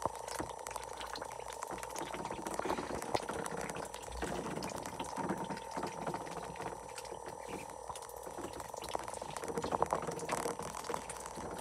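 Blue Swedish ducks dabbling in tubs of water and wet mash, their bills sifting and slurping with a fast, irregular run of wet clicks and splashes.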